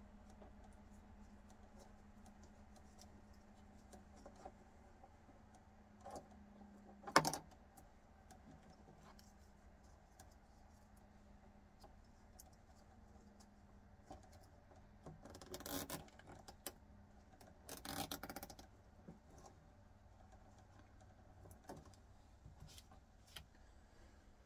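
Small parts and tools handled on a workbench: scattered light clicks and clatter, one sharp click about a third of the way in, and two short rustling scrapes later on. A low steady hum runs underneath and fades about halfway.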